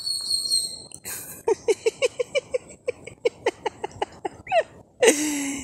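Spider monkey calling: a quick run of short pitched calls, about five a second, starting about a second in and ending in one longer call that rises and falls. A man's voice cuts in near the end.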